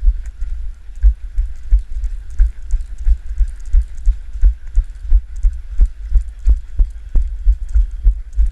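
Steady rhythm of dull low thuds, about two to three a second, with faint clicks on each: footsteps jarring a body-worn camera as its wearer walks.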